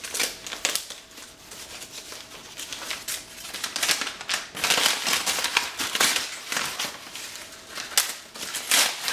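White paper wrapping rustling and crinkling as it is pulled off VHS tapes by hand, in irregular bursts that grow louder about midway and again near the end.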